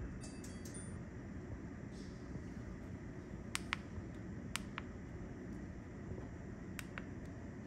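Three pairs of faint sharp clicks of buttons being pressed, over a steady low hum.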